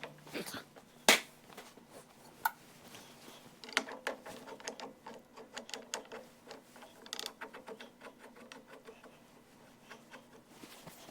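Small metal parts and hand tools clicking and clinking against a 1914 Chevrolet steering gear box's housing as a small filler plug is refitted. One sharp click comes about a second in, then a busy run of small clicks and ticks in the middle that thins out near the end.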